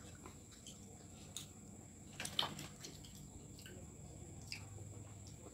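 Faint eating sounds of children eating with their fingers: chewing and wet lip smacks with scattered small clicks. A couple of sharper clicks come a little over a second in and again just past two seconds.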